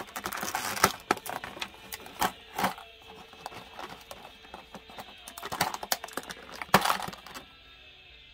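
Light plastic clicks and taps as a clear plastic blister tray of tiny model-kit parts (wheels and tyres) and a small screwdriver are handled, with parts picked out and set down. The clicking is irregular and stops about a second before the end.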